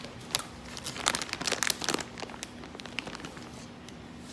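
A bag crinkling and rustling as it is handled, with a run of sharp crackles over the first two seconds that then dies away.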